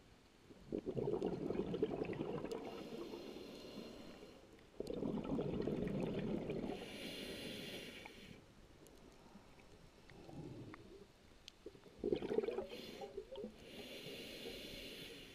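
Scuba diver breathing through a regulator underwater: three long, bubbling exhalations, with a shorter hiss of the regulator on the breaths in between.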